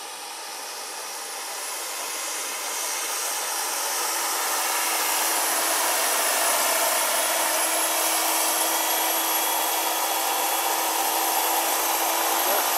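Turbine engine and rotors of a 1/8-scale AS-332 Super Puma model helicopter in flight: a steady turbine whine over rotor noise. It grows louder over the first five seconds as the helicopter comes closer, then holds steady.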